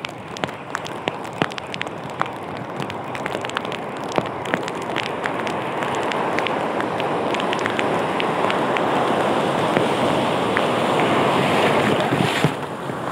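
Sea surf breaking and washing around, mixed with wind buffeting the microphone; the rush of water grows louder through the middle. Scattered sharp ticks sound over it in the first half.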